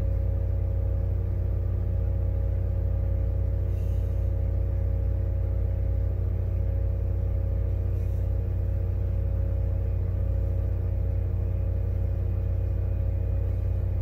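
Steady low hum of soldering-bench equipment running, such as the board preheater, with two faint light ticks about four and eight seconds in.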